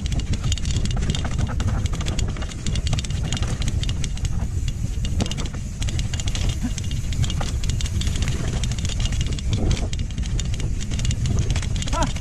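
Mountain bike riding down a rough dirt singletrack: a steady low rumble with dense rattling and clicking from the bike over the ground.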